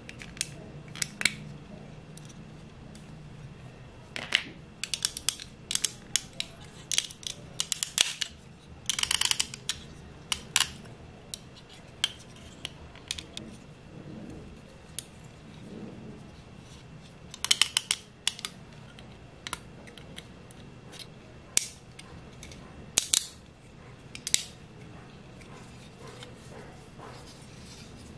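Sharp clicks and snaps of the toy's jointed plastic parts being folded, turned and locked into place by hand as the alien figure of a Bandai Chogokin combining robo is transformed. The clicks come in irregular clusters, busiest in the first ten seconds or so, with a few more near the end.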